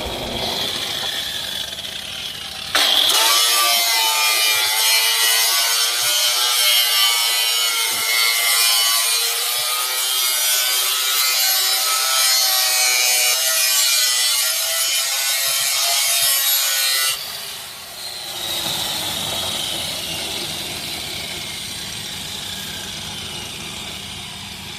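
Steady rasping and grinding of a tool working metal. It turns much louder and harsher about three seconds in, with a wavering whine, and drops back abruptly about seventeen seconds in to a fainter rasp.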